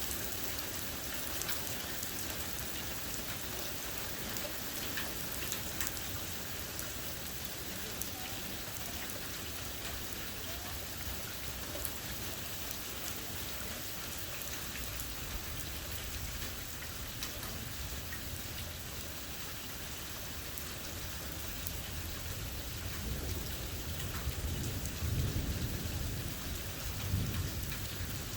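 Steady rain from a severe thunderstorm, with scattered sharp drop ticks on a hard surface. A low rumble of thunder builds over the last few seconds.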